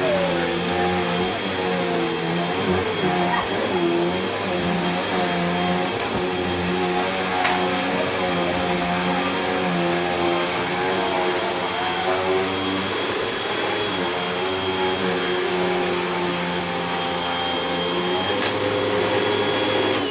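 Vacuum cleaner running steadily, its motor hum wavering up and down in pitch.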